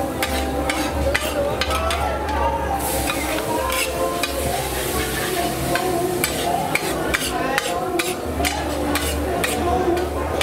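Pad thai noodles being stir-fried in a hot pan, sizzling under a constant rapid clatter and scrape of a metal spatula against the pan.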